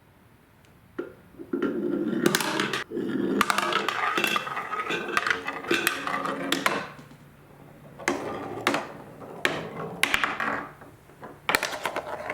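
Marbles rolling and clattering along a wooden marble run. A steady rolling rumble with clicks starts about a second and a half in and lasts to nearly seven seconds, then gives way to separate clicks and knocks as marbles strike the track.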